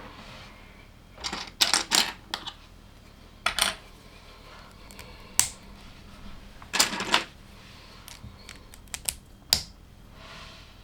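LEGO plastic pieces clicking and rattling as they are handled and snapped together. The clicks are sharp and irregular, some single and some in short clattering clusters.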